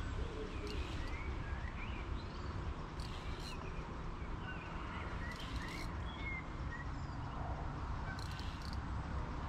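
Small birds singing: scattered short high chirps and whistles, with brief high buzzy bursts about every two to three seconds. A steady low rumble runs underneath.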